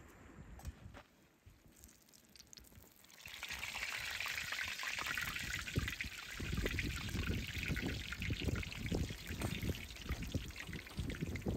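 Hot oil sizzling and crackling as large chebureks deep-fry in a wide pan; the sizzle comes in about three seconds in and runs on steadily, with a low rumble underneath from about six seconds in.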